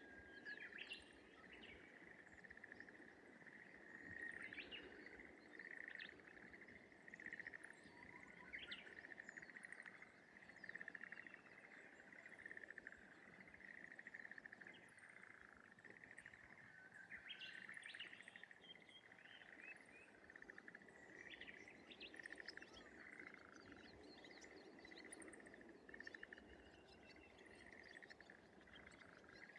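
Faint rice-paddy morning ambience: a continuous chorus of animal calls holding one steady pitch, with many short bird chirps scattered over it.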